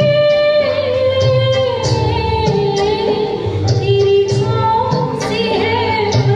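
A woman singing long held, gliding notes of a Hindi film song over a backing track with a steady beat.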